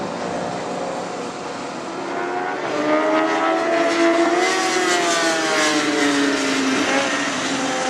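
Sport motorcycle engines at racing speed on a track. A faint drone of distant bikes comes first. About three seconds in, one bike's engine note grows loud and high as it passes close by, then its pitch drops away as it goes past.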